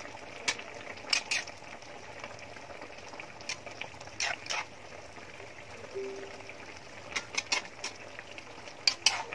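Coconut-milk sauce simmering in a metal wok, with a metal ladle clinking and scraping against the pan now and then as the sauce is spooned over the fish.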